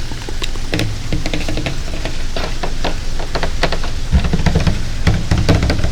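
Fingers tapping quickly and irregularly on a water container, many short sharp taps. A low rumble runs underneath, stronger from about four seconds in.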